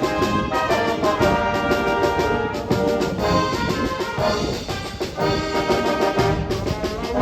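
Orchestral music led by brass, trombone and trumpet, with a steady beat.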